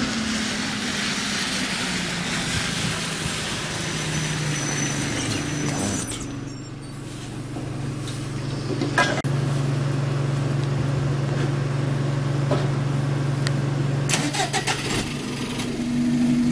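Alexander Dennis Enviro200 bus's rear-mounted diesel engine running after start-up, its note rising for a few seconds, dropping about a third of the way in, then settling to an even idle. A few short knocks come near the end, and the engine note rises again just before the close.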